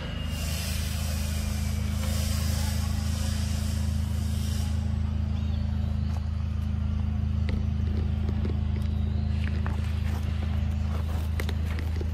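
A steady low hum runs throughout. Over it, a high hiss fades out about five seconds in, and from about halfway on there are short dry crackles and clicks of dry leaf litter being stirred or stepped on.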